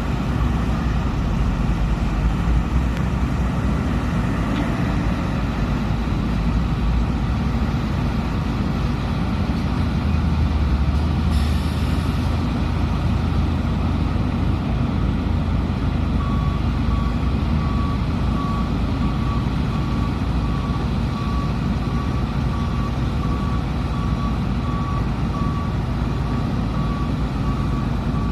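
Heavy diesel engine of a SANY SY330H excavator running steadily under load, swelling louder with a short hiss about 11 seconds in. From about 16 seconds a reversing alarm beeps about once a second.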